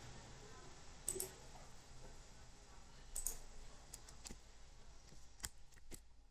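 Computer mouse clicking several times over a faint steady hum, with two quick pairs of clicks followed by single clicks spaced about half a second to a second apart.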